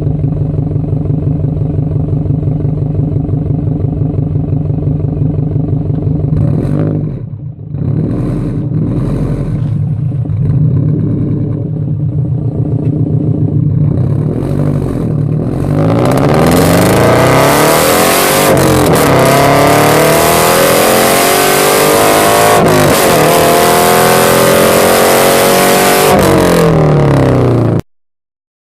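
FA20 flat-four engine of a BRZ/FR-S/GT86 breathing through an unequal-length header with the catalytic converter and muffler deleted. It runs steadily, then gives a few short surges of revs. From about halfway it gets much louder under hard acceleration, its pitch climbing in three long sweeps, and it cuts off abruptly near the end.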